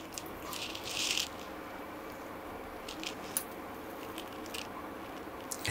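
Scattered light clicks and clinks over a faint steady hiss, around an empty aluminium kadhai heating on a gas stove.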